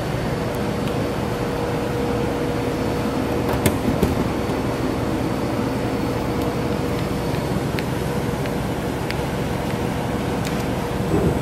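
Steady hum of running machinery with a constant tone held under it, broken by a few light clicks and taps.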